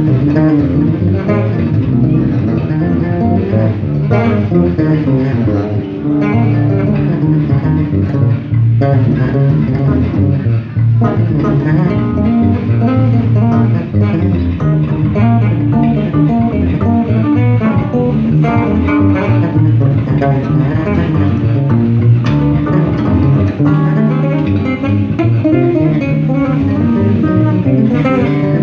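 Three electric bass guitars played together through amplifiers in a jam, layered plucked bass lines and higher chordal parts in a continuous jazz-funk-rock groove.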